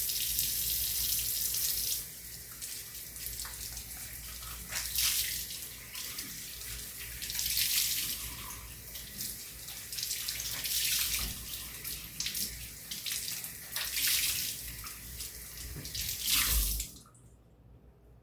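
Kitchen sink tap running, with the stream changing and splashing in surges as a rag is rinsed under it. The water is shut off suddenly about seventeen seconds in.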